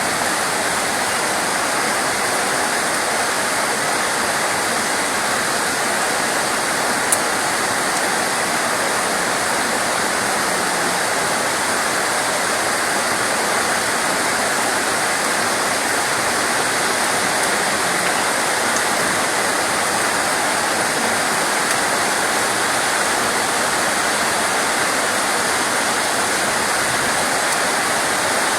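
Steady, even hiss of heavy rain, with one brief click about seven seconds in.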